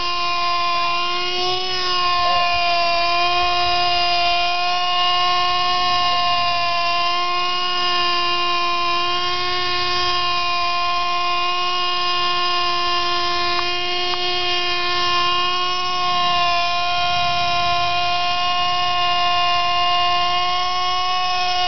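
Lite Machines Model 110 RC helicopter's small .07 two-stroke glow engine running at a steady high-pitched whine while the helicopter hovers. The pitch wavers only slightly as the throttle shifts.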